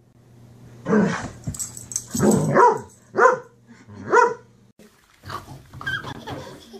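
Dog barking, about five short barks in quick succession.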